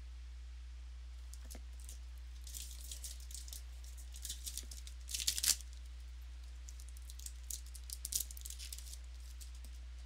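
Trading cards and their foil pack wrapper being handled: short bursts of crinkling and rustling in three spells, the loudest about five seconds in, over a steady low hum.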